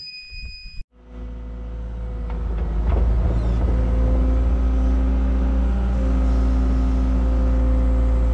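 A short electronic beep from the Cat 306 mini excavator's controls, then its diesel engine starts and builds up over about two seconds to a steady, loud run.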